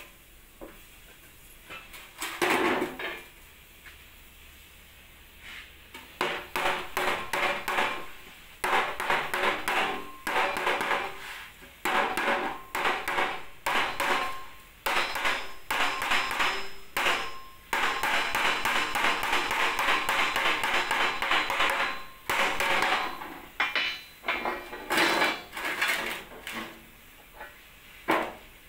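Hand hammer beating out dents in a dented excavator cover panel laid on a steel plate: runs of rapid metallic blows, several a second, broken by short pauses, starting in earnest about six seconds in. The panel is being straightened before it is repainted.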